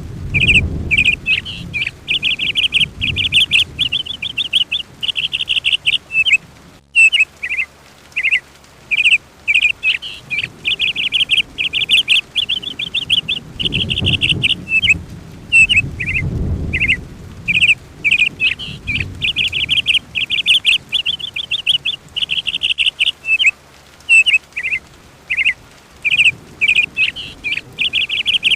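Songbird singing: fast trills and chirping phrases, repeated again and again with short pauses, over a low rumble that swells and fades. The sound drops out briefly about seven seconds in.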